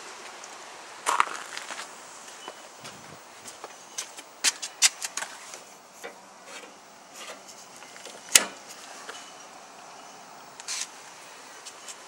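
Scattered sharp clicks and knocks as a residential breaker panel is opened and a circuit breaker is switched on by hand, with footsteps on concrete.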